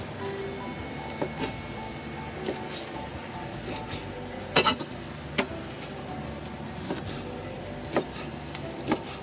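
Kitchen knife cutting through raw chicken on a cutting board: soft slicing and irregular sharp knocks of the blade against the board, the loudest near the middle.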